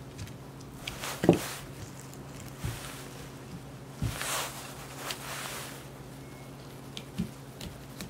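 Woven rattan cane webbing rustling and crackling as the trimmed excess is pulled away by hand, with a few light knocks, the loudest about a second in.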